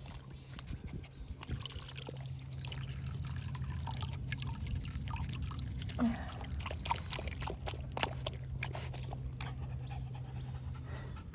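Small poodle-cross dog lapping water from a collapsible bowl as water trickles in from a plastic bottle: a run of quick, irregular wet laps and splashes. A steady low hum sits underneath.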